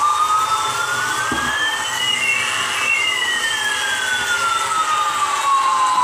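Battery-powered Citilink A380 toy airliner playing its electronic jet-engine sound effect. It is a steady hiss with two whines gliding in opposite directions, one rising and one falling, that cross about halfway through.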